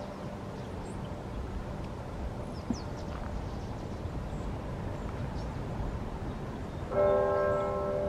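Monastery church bell tolling slowly: the ring of the previous stroke dies away in the first moments, then a single new stroke about seven seconds in rings on as a cluster of steady tones.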